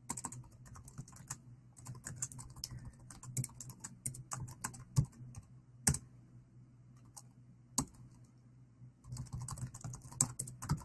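Typing on a computer keyboard: quick runs of keystrokes, then a lull about halfway through broken by a few single, louder key taps, and another quick run near the end.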